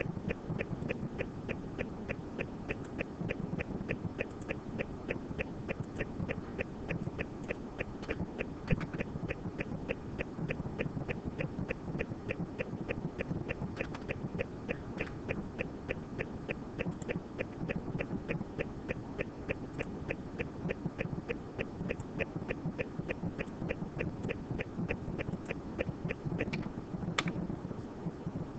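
Steady, even ticking, about three or four ticks a second, over a low background hum, with a couple of sharper clicks near the end.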